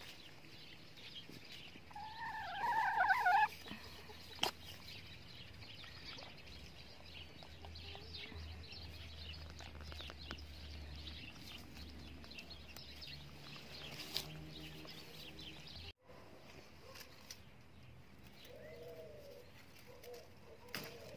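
A chicken gives one wavering squawk about two seconds in, the loudest sound here. Near the end come a few low, warbling bird calls.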